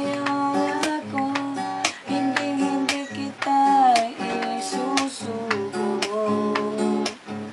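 Acoustic guitar strummed in a steady rhythm with a man singing a slow melody over it, holding and sliding between notes.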